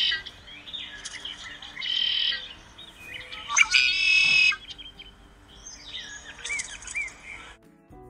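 Red-winged blackbird calling several times. The loudest is a trill about four seconds in, followed by a few short rising-and-falling whistled notes. The sound cuts off shortly before the end.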